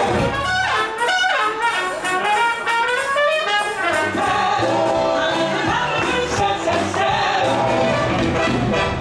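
Brassy USO-style stage-show music with a trumpet playing the lead.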